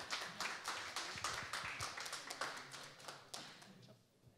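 Audience applauding with many hands clapping, dying away near the end.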